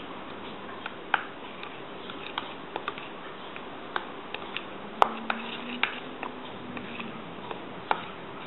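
Metal spoon clinking and scraping against a stainless steel mixing bowl while stirring flour batter: irregular sharp ticks over a steady hiss, the loudest about five seconds in.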